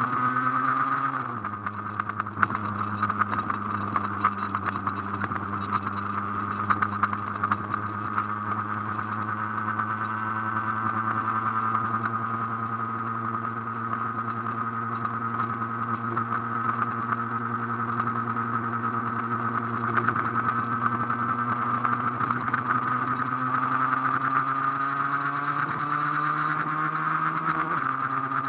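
Aprilia AF1's two-stroke single-cylinder engine running at high revs under way. Its pitch drops suddenly about a second in as a gear is changed up, then holds steady and climbs slowly near the end as it pulls again.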